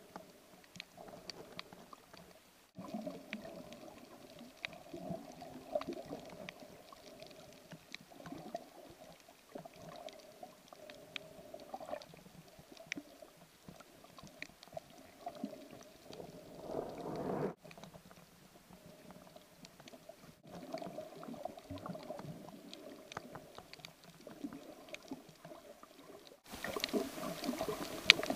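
Muffled underwater sound picked up by a handheld action camera below the surface: water moving and sloshing, with many faint scattered clicks and crackles. It cuts out briefly a few times and grows louder near the end.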